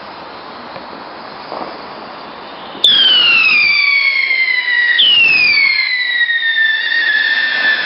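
Firework fuses hissing steadily. About three seconds in, a whistling firework rocket starts with a sudden shrill whistle that slides down in pitch. About two seconds later a second whistling rocket starts another whistle that also falls in pitch.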